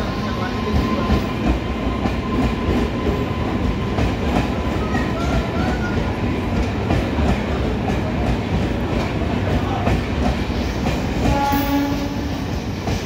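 Three-phase MEMU electric train running along the platform and slowing to a stop, a steady rumble of wheels and coaches with rail clicks. A brief tone about a second long comes near the end.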